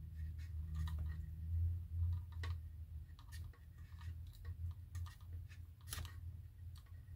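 Scattered small clicks and taps of wires and small tools being handled, over a steady low hum.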